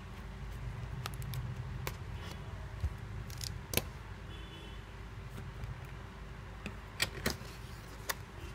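Cardboard box being slit open and its flaps opened by hand: scattered sharp clicks and taps over a steady low hum.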